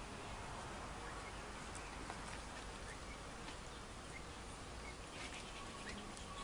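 Quiet outdoor ambience: a steady low background hiss and rumble with scattered faint, short high chirps, and a faint steady tone that comes in near the end.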